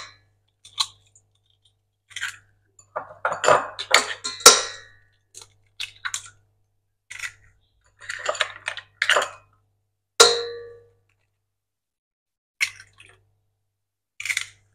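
Raw eggs cracked one by one against the rim of a stainless steel mixing bowl: clusters of sharp taps and the crackle of the shells being pulled apart. One knock about ten seconds in leaves the metal bowl ringing briefly.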